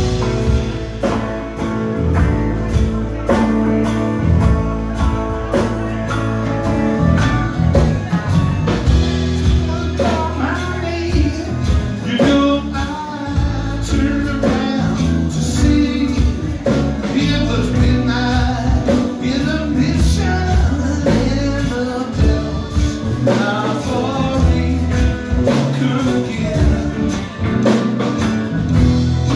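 Live rock band playing: electric guitars, electric bass, keyboard and drum kit, with a male vocalist singing at the microphone.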